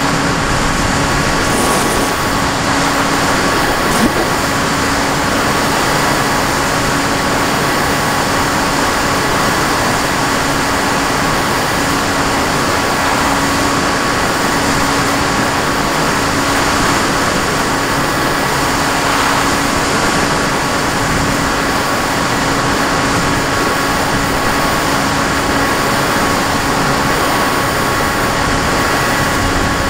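Steady motor whine and propeller noise with wind rush from a radio-controlled model aircraft in flight, recorded on board. The pitch holds level throughout, as at a constant cruising throttle.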